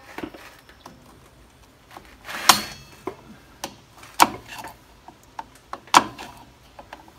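Steel screwdriver prying at a drum-brake shoe return spring, metal clinking and scraping against the brake shoes and hardware in a string of sharp knocks, the loudest about two and a half, four and six seconds in.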